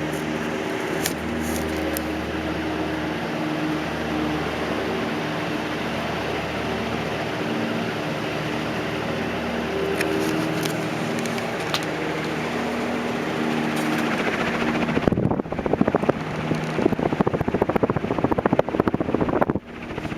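A 1400 mm GEC Royal Bianca ceiling fan running at full speed (speed 5): a steady rush of air over a low motor hum. About 15 seconds in, a loud rapid fluttering takes over for around four seconds and then cuts off suddenly.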